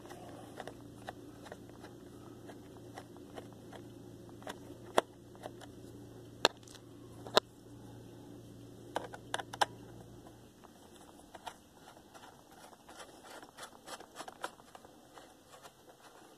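A screwdriver clicking and scraping on the small screws of a laptop's bottom panel as they are backed out, in scattered sharp clicks, a few of them loud. A low steady hum underneath stops about two-thirds of the way through.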